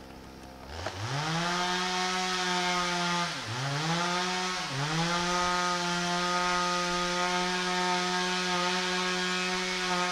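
Chainsaw revving up and running at high speed, its pitch dipping briefly twice about three and a half and four and three-quarter seconds in, as when the chain bites into the wood. It is cutting a log into a Swedish torch.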